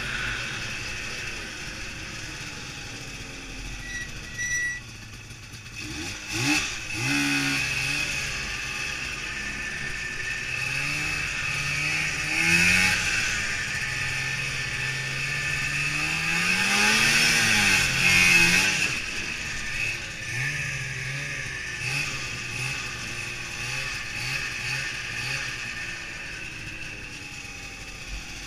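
Two-stroke snowmobile engine heard from the rider's seat, running at speed and repeatedly revving up and easing off with the throttle. The biggest rise and fall in pitch comes about two-thirds of the way through.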